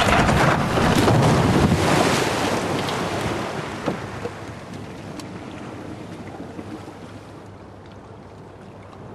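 Canal water churning and splashing around an overturned Reliant Robin three-wheeler, loud at first and dying away over several seconds, with a single knock about four seconds in.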